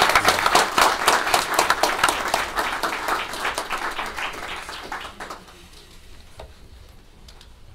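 Audience applauding, the clapping dying away over about five seconds and ending in a few scattered claps.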